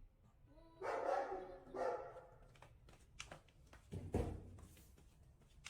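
A dog barking twice, about a second in and again near two seconds, followed by a few light clicks and a dull thump a little after four seconds.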